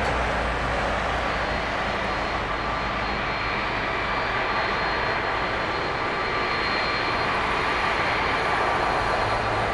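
Pratt & Whitney PW4000 turbofans of an Airbus A330-200F freighter on its landing, a steady loud jet rumble and rush with a thin, steady engine whine over it.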